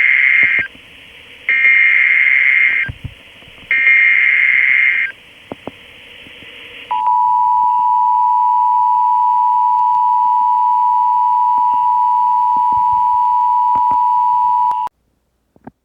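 Emergency Alert System tones: three bursts of buzzing SAME digital header data, each about a second and a half long, then the steady two-tone EAS attention signal held for about eight seconds before it cuts off abruptly.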